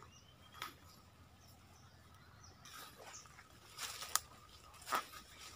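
Footsteps through dry leaf litter and brush: a few sharp crackles of leaves and twigs underfoot, the loudest about four and five seconds in, over a faint steady insect drone.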